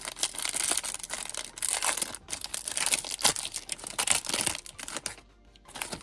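Foil wrapper of a Topps baseball card pack crinkling and tearing as it is ripped open: dense crackling that stops about five seconds in.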